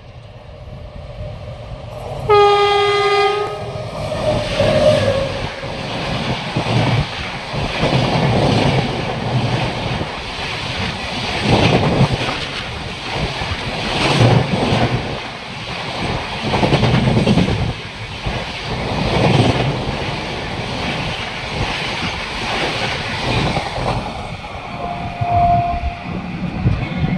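WAP-7 electric locomotive sounding its horn once, about two seconds in, then the Humsafar Express running through at speed: the coaches' wheels clatter over the rails in repeated waves, easing near the end as the last coach passes.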